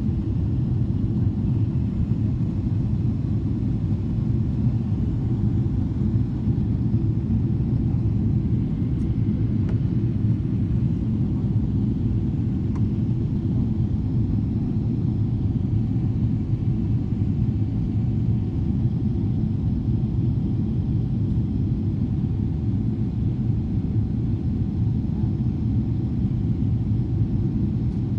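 Steady low rumble inside the cabin of a Boeing 777-300ER climbing after takeoff: its GE90-115B engines and the airflow over the fuselage, heard from a window seat beside the wing.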